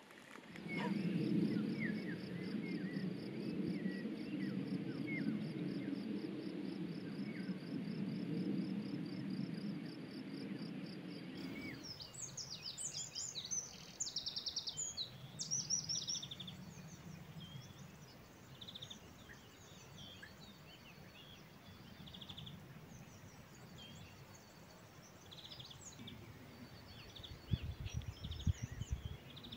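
Outdoor nature ambience in two parts. First a steady low rumble under a fast, even, high-pitched ticking trill and faint chirps. After an abrupt change, a small songbird sings loud high warbles and trills, followed by scattered chirps and a few low thumps near the end.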